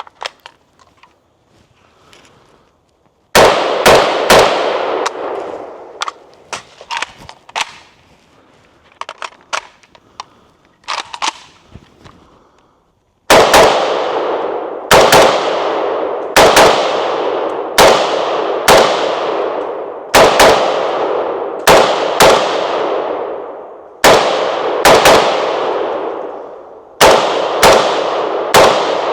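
Palmetto State Armory PSA GF3 AK-47 semi-automatic rifle firing 7.62x39 rounds, each shot with a long echoing tail. Three quick shots come about three seconds in, then a pause with fainter metallic clicks, then a steady run of shots about one a second, often in quick pairs.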